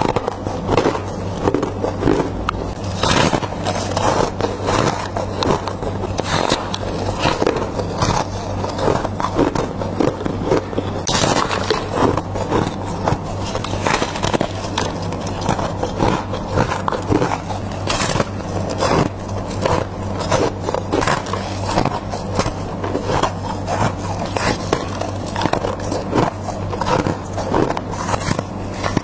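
Close-miked biting and chewing of soft, snowy white ice like freezer frost: a steady stream of squeaky crunching and crackling bites.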